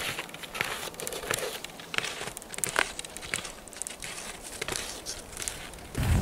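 Irregular crunching and crackling of snow under skis and boots, many small crackles a second at uneven spacing. Near the end a louder low rumble sets in.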